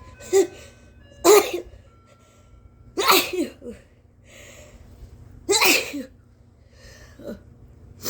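A woman sneezing again and again: three big sneezes about two seconds apart, with shorter, quieter ones between them.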